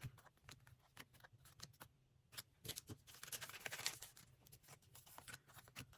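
Faint handling of trading cards: soft clicks and taps as cards are flicked through and set down on piles, with a brief rustle about three seconds in.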